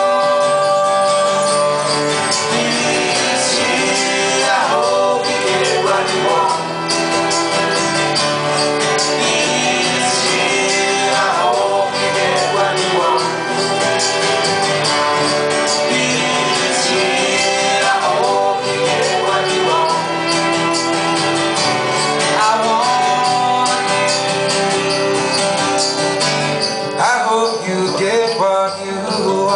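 A live acoustic band playing a song: acoustic guitars, cello and violin, with singing.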